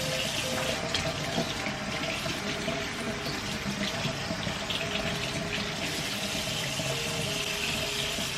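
Kitchen faucet running steadily as small red potatoes are rinsed under it, with a few light knocks and clicks.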